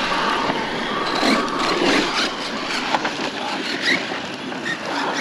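Radio-controlled car driving, its electric motor whirring in short rises of pitch over steady noise, with a few sharp knocks.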